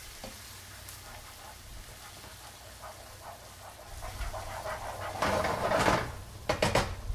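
A black spoon stirring thick blended red pepper puree through onions and garlic in a nonstick skillet over a soft sizzle. The strokes grow much louder about five seconds in, with a few sharp knocks of the spoon against the pan near the end.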